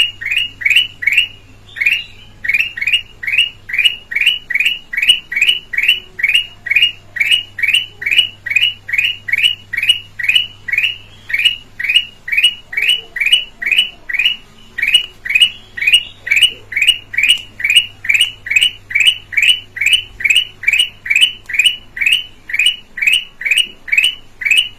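Kutilang emas (a bulbul) calling: one short, clear, downward-sliding note repeated rapidly and evenly, about two to three times a second. There is a brief break about two seconds in, and a faint electrical hum sits underneath.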